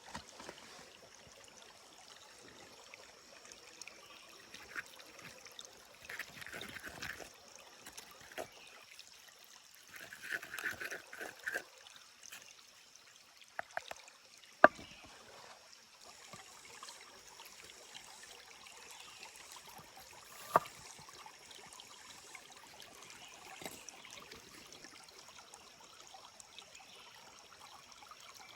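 A small stream trickling steadily, with a few sharp clicks. The loudest click comes about halfway through and a second one follows about six seconds later.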